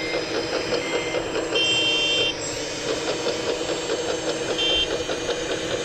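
Small electric motors of RC construction models running with a fast, steady rattle. Short electronic beeps from a model's reversing-alarm sound unit come briefly about a second in, at about two seconds, and again near the end.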